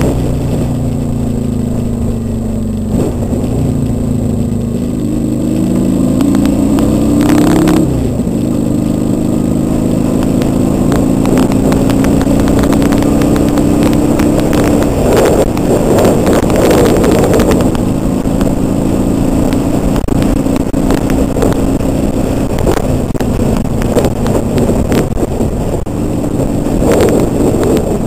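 Kawasaki Vulcan 800's V-twin engine under way, its revs rising and dropping with gear changes about three and eight seconds in, then holding fairly steady at cruising speed. Wind rushes over the helmet-cam microphone at times.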